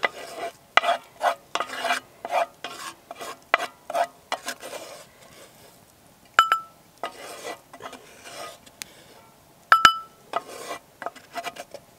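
Wooden spatula scraping and scooping cooked quinoa out of a black cast-iron Dutch oven into a bowl: a run of short scrapes and knocks, with two sharp, ringing knocks about six and ten seconds in.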